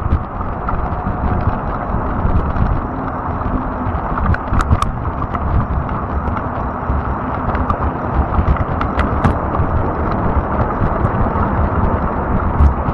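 Fat-tire e-bike rolling over rough ground: a steady low rumble with scattered sharp clicks and ticks.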